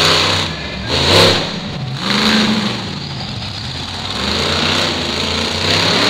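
Monster truck engine revving hard in repeated throttle surges, three in the first couple of seconds and another near the end, with a steadier pull in between.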